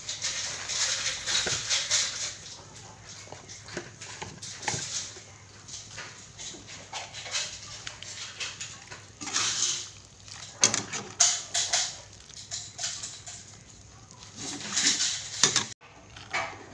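Metal ladle scraping and knocking against an aluminium pot while stirring leafy greens into a simmering coconut-milk gravy, in irregular scrapes and rustles with a few sharp clinks about two-thirds of the way through.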